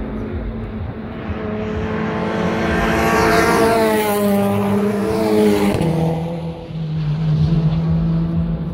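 Race car engine at full speed approaching and passing close by: the note climbs and grows louder as it nears, then drops sharply just before six seconds in as it goes past. A steady lower engine drone runs underneath.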